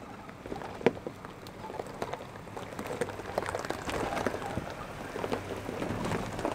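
Tyres of a pickup truck crunching and crackling over a dirt trail strewn with pine needles and twigs as it crawls past at walking pace, with a low engine hum underneath. The crackling is irregular, with a sharp snap about a second in, and grows denser as the truck comes closest.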